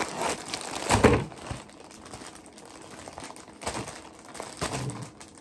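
Plastic packaging crinkling and rustling as a newly bought item is handled and unwrapped, with a louder crinkle and a thump about a second in.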